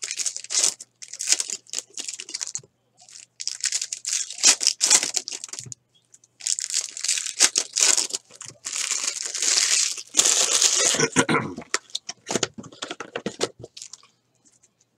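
Foil wrappers of Bowman Chrome baseball card packs being torn open and crinkled by hand, in bursts of tearing and crackling with short pauses between them.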